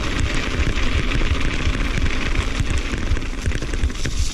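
Wind buffeting the microphone of a bike-mounted action camera at speed, with mountain-bike tyres rolling over a rough, wet dirt trail and scattered clicks and rattles from the bike.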